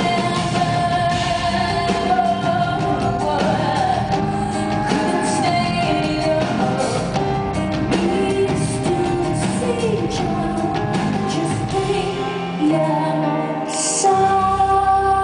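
Live concert performance: a woman singing lead over a full band.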